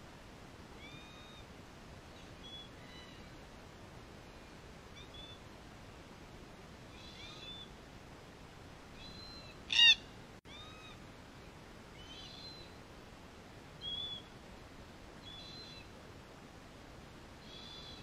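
Red-tailed black cockatoo calling close by: one loud, short call just before ten seconds in, and a softer call near fourteen seconds. Faint short chirping calls of birds farther off repeat throughout.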